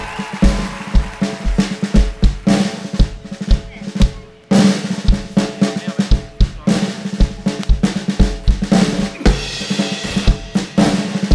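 Stage band music led by a drum kit, with a steady kick-and-snare beat under sustained instrument tones. The music drops away briefly about four and a half seconds in, then the beat comes straight back.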